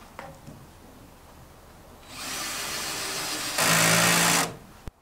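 Cordless drill driving a screw to fix a timber kicker form to its steel bracket. It runs steadily for about two and a half seconds and gets louder for its last second before stopping. A single sharp click comes just after.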